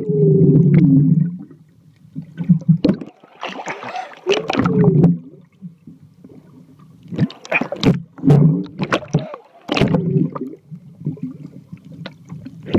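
Muffled underwater sound heard through a submerged camera as a swimmer moves beside it: bubbling and rushing water in repeated bursts every second or two, with a few sharp clicks.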